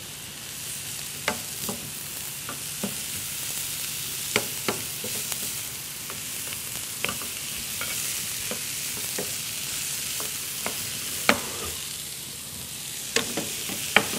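Food sizzling as it fries in a frying pan while a wooden spoon stirs it, knocking against the pan at irregular moments, sharpest about two-thirds through and just before the end. A faint low hum runs underneath.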